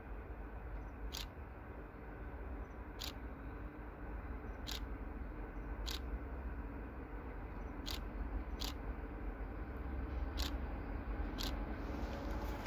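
Low, steady rumble of an approaching class 754 diesel locomotive with its train in the distance, slowly growing louder. Faint sharp clicks sound now and then, about every one to two seconds.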